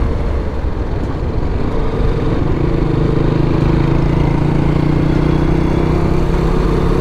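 BMW G310GS single-cylinder motorcycle riding at a steady speed: the engine runs with a steady note that settles in about two and a half seconds in, over wind and road noise.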